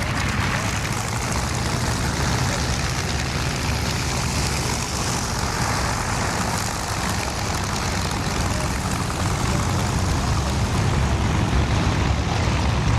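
Aircraft engine running steadily, a continuous deep rumble with a broad rushing noise above it that swells a little midway.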